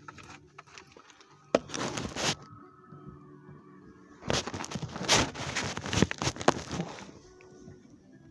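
Two spells of crackling, rustling noise with sharp clicks, the second longer and louder, over a faint low hum inside a moving car.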